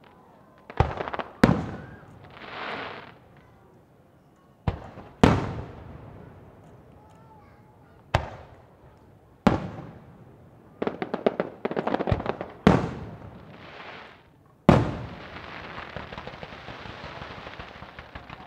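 Fireworks shells bursting: a series of sharp bangs, each trailing off, with a quick run of rapid crackling pops about eleven seconds in. A last bang near the end gives way to a steady crackling hiss.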